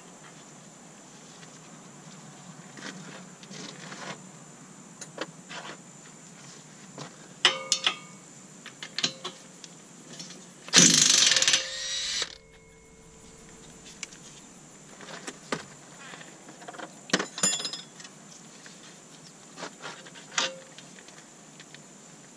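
Impact wrench hammering on a 19 mm strut-to-knuckle bolt for about a second and a half near the middle, breaking it loose. Scattered metal clinks and clicks of a hand wrench and bolts come before and after.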